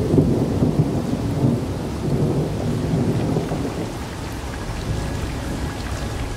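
A low, rough rumbling noise, strongest in the bass and fluctuating in loudness, with no clear pitched sound.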